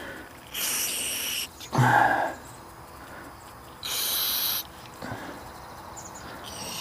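Aerosol carb cleaner sprayed in two short hissing bursts, about a second apart from each other's end, with a brief low sound between them.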